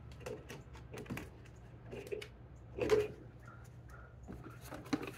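Plastic gold pan clicking, tapping and scraping as it is handled and tried on a nail in the wall, with one louder knock about three seconds in; its hanging hole is too small for the nail.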